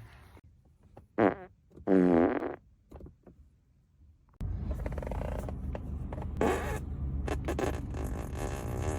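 Human farts: a short, pitched one about a second in, then a longer one a moment later whose pitch wobbles and drops as it goes. About four seconds in, a steady noisy background starts abruptly, with more brief sounds over it.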